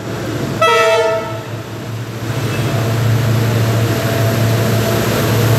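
WDP4 diesel locomotive approaching: its horn sounds one short blast about half a second in. Then the rumble of its engine and the train grows steadily louder as it draws near.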